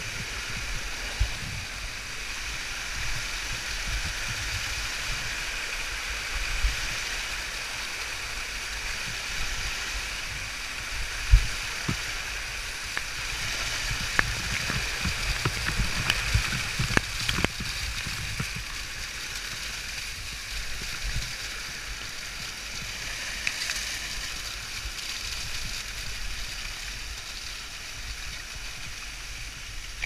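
Cautley Spout waterfall rushing close by in a steady hiss. Scattered low bumps and a few sharp clicks, most of them around the middle, come over it.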